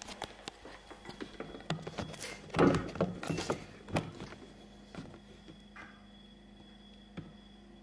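Camera being handled and set down on a kitchen counter: a run of knocks, bumps and rubbing, loudest around the middle, after which only a faint steady hum remains.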